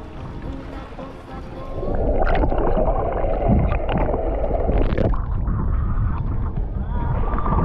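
Muffled rushing and gurgling water from a camera held underwater, starting about two seconds in, with a few knocks on the camera.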